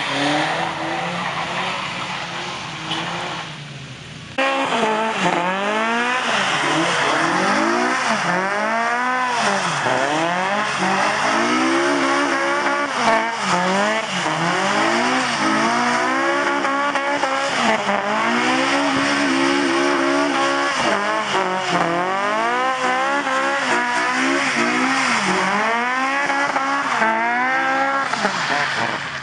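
Car engine revving hard and falling back over and over, about once a second, with tyres squealing as a car is drifted on wet tarmac. The loud revving starts suddenly about four seconds in, after a quieter, steadier engine sound.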